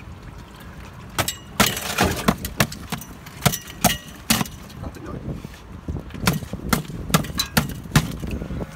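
Ice on a frozen cooling tower breaking, with irregular sharp cracks and clatters that start about a second in and go on in an uneven run.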